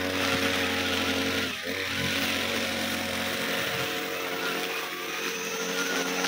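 Backpack brush cutter engine running at high speed, its nylon trimmer line whirring as it cuts grass and sweeps debris off a concrete road. The engine speed dips briefly and picks up again about a second and a half in.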